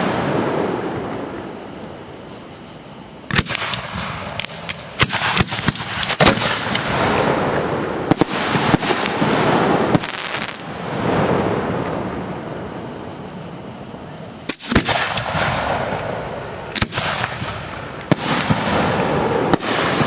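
Aerial fireworks shells bursting: sharp bangs every few seconds, some followed by quick runs of crackling, each one trailing off in a long echo.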